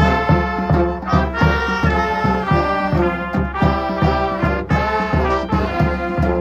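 Brass street band playing a lively tune together: trumpets, trombone, saxophones, clarinet and sousaphone over a steady drum beat.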